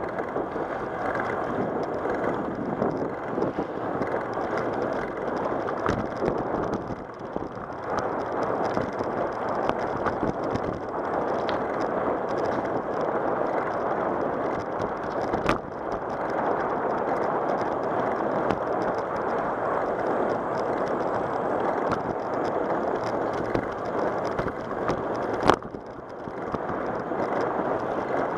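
Steady rush of wind on the microphone mixed with bicycle tyres rolling on an asphalt path. There are two sharp knocks, about halfway through and near the end.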